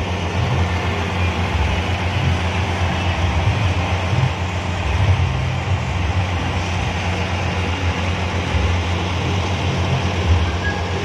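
A 12-subwoofer sound system pumping out loud, deep bass during a sound check. The bass notes shift in level every fraction of a second, over a steady haze of higher noise.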